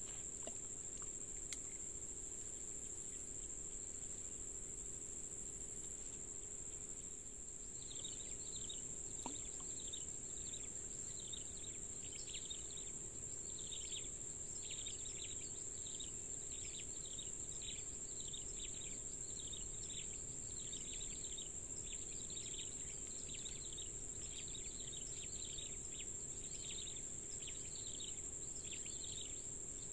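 Insects droning steadily at a high pitch in the riverside grass. About a quarter of the way in, short falling chirps begin and repeat at about two a second to the end.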